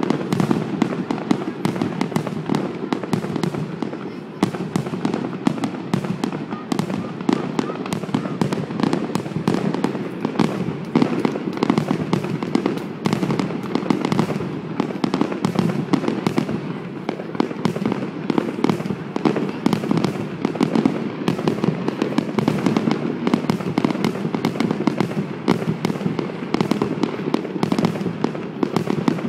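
Aerial fireworks going off in a rapid, unbroken barrage of bangs, several a second, with no pause.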